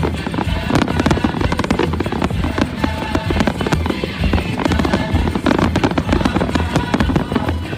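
Fireworks display going off continuously: a dense, rapid run of bangs and crackles, heard together with loud music.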